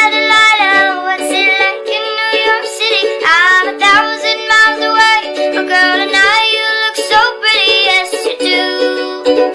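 Background music: a song with a high singing voice over steady plucked-string chords.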